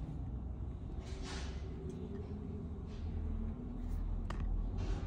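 Handling noise from a jacket being held and moved by hand: a steady low rumble, a brief rustle of fabric about a second in, and a single soft click near the end.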